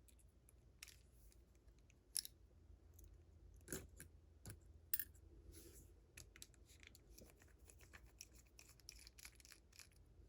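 Faint small clicks and scrapes of a Ruko lock and small tools being handled, with a few sharper ticks about two, four and five seconds in.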